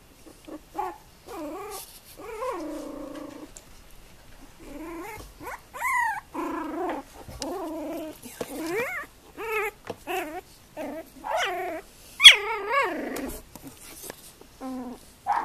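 Young Tibetan terrier puppies whimpering and squeaking: a string of short whines that rise and fall in pitch, with the loudest, highest cry about twelve seconds in.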